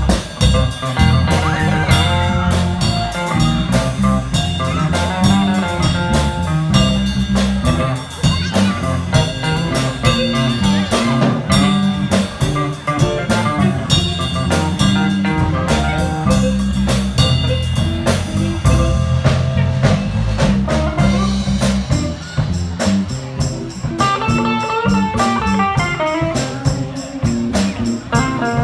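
Live blues band playing with no singing: electric guitars, electric bass and a drum kit keeping a steady beat, with harmonica.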